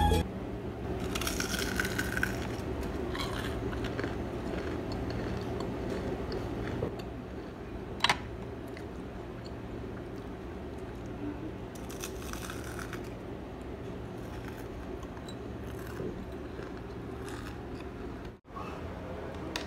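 Steady low electrical hum of room tone, with a few faint crunchy rustles about a second in and again around twelve seconds, and a single sharp click about eight seconds in.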